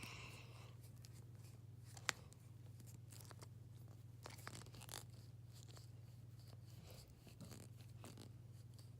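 Faint crinkling and cracking as a Hatchimals CollEGGtibles toy egg shell is peeled open by hand, with one sharp click about two seconds in, over a steady low hum.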